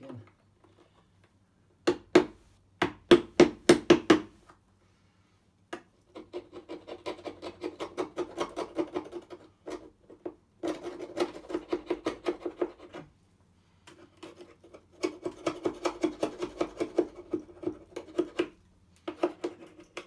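Chisel scraping paint and wood out of the latch strike-plate recess in a painted wooden door frame, in quick strokes about three to four a second. The strokes come in several runs with short pauses between them.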